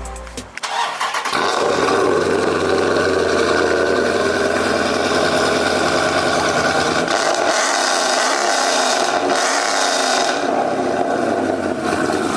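Dodge Charger Scat Pack's 6.4-litre (392) Hemi V8 starting about a second in, then running steadily and loud.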